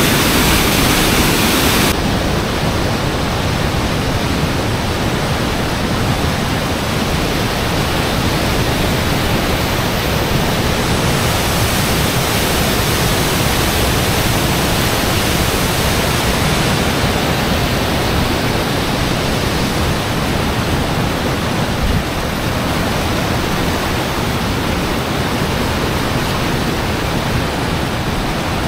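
Waterfall pouring with a steady, loud rush of water. The highest hiss drops away about two seconds in.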